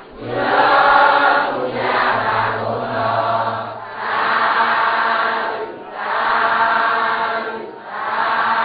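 Buddhist devotional chanting by a group of voices in unison. It moves in long sustained phrases of about two seconds each, with short breaks between them.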